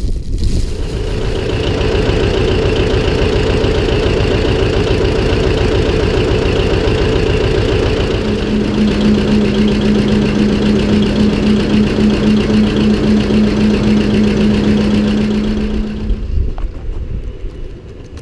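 Engine running steadily, with an added steady hum joining about halfway through; the sound falls away near the end.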